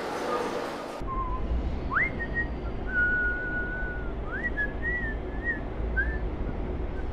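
The song's music stops about a second in, then a person whistles a few notes: a quick rising glide, one long held note, then several short rising notes, over a steady low hum.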